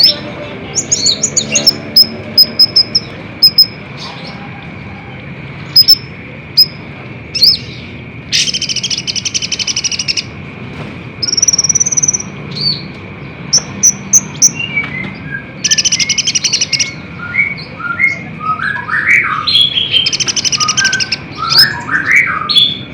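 Olive-backed sunbird (kolibri ninja) singing in rapid-fire bursts: sharp, high chirps, several buzzy trills lasting a second or more, and runs of short falling notes.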